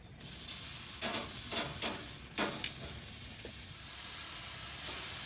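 Marinated fish fillets sizzling as they are laid with metal tongs onto a hot perforated grill grate on a gas grill, with a few sharp clicks in the first few seconds.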